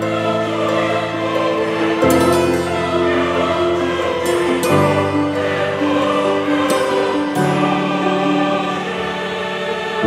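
Background music with a choir-like vocal part over slow sustained chords that change every two to three seconds.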